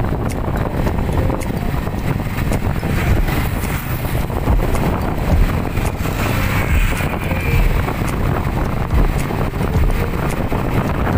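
Wind rushing over the microphone with the engine and road noise of a moving open vehicle: a loud, steady rumble.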